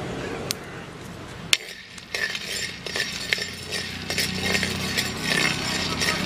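Metal ladle stirring peanuts as they dry-roast in a clay pot: the peanuts rattle and the ladle scrapes and clicks against the pot several times a second, after one sharp knock about a second and a half in.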